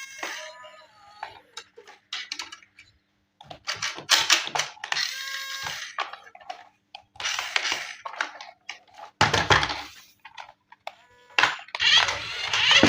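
Intermittent clicks, knocks and rustling of cardboard and plastic being handled while an RC toy is unboxed, with short quiet gaps between; a few light clinks ring briefly, and a louder rustle comes near the end.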